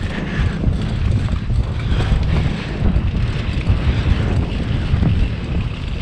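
Steady rush and rumble of wind on the microphone of a camera mounted on a mountain bike moving fast along a dirt singletrack, mixed with the bike's rumble over the trail.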